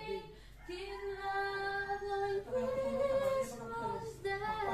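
A voice singing unaccompanied, holding two long notes one after the other.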